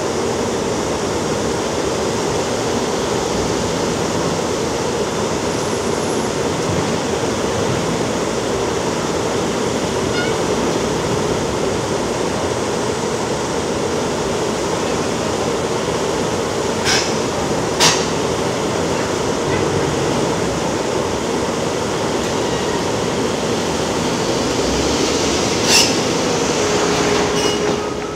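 Heavy diesel machinery running steadily under load, with a few sharp metal clanks: two close together, and another near the end.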